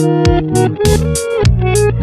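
Background music: guitar and bass over a steady drum beat.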